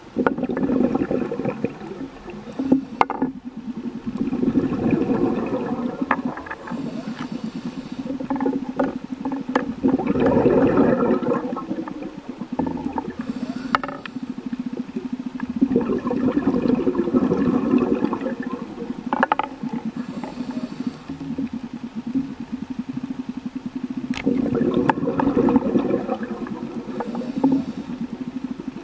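Scuba diver breathing through a regulator underwater. A short hiss comes on each inhale, about every six seconds, and each is followed by a long gurgling rush of exhaled bubbles.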